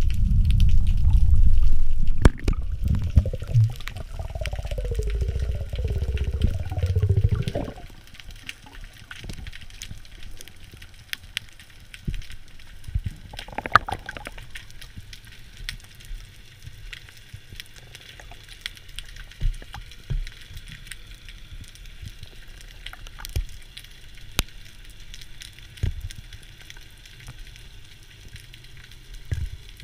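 Underwater water noise from a freediver's camera: a loud low rush of moving water with gurgling bubbles for the first seven seconds or so, then it drops to a quiet underwater hiss with scattered sharp crackling clicks.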